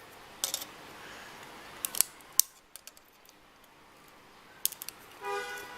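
Scattered sharp clicks and snips of a hand tool prying and cutting at a smart LED bulb's plastic housing and circuit board. A short steady squeaky tone comes near the end.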